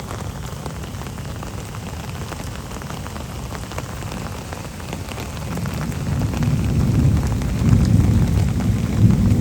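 Steady rain falling with scattered drop ticks, and a deep roll of thunder that swells in from about halfway and is loudest near the end.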